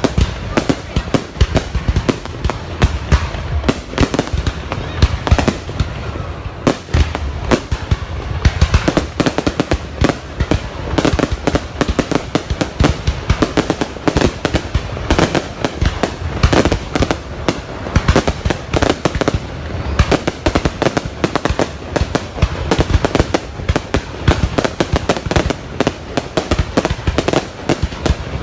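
Fireworks display: a dense, continuous run of bangs and crackles, several a second, with no break.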